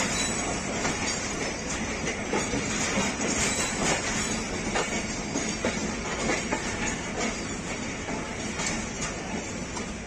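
Pakistan Railways passenger coaches rolling slowly over the track, heard from aboard: a steady rumble of wheels on rail with scattered clicks and clatter as the wheels cross rail joints and points, easing a little toward the end.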